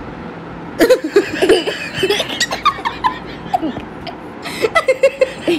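A woman and a young boy laughing together in short, broken bursts of giggles, starting about a second in.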